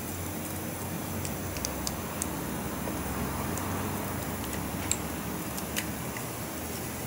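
A handful of light metallic clicks and taps as the output retainer of a Twin Disc MG509 marine gearbox is handled and set onto the gearbox housing, over a steady shop hum.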